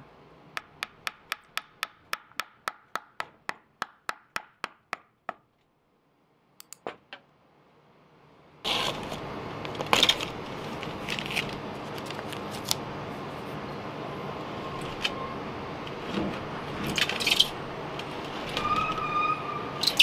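A small hammer tapping a wooden perch stick into a birdhouse, about four light taps a second for some five seconds, growing fainter. After a short pause, a steady hiss with scattered crackles and rustles as masking tape is peeled off the painted wood.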